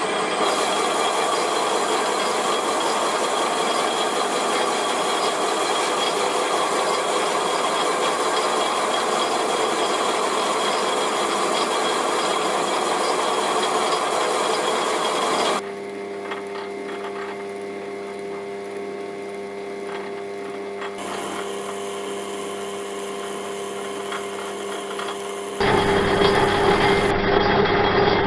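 A machine tool cutting cast iron, with a loud steady cutting noise. About halfway through it drops abruptly to quieter running with a steady motor hum, then near the end the loud cutting returns.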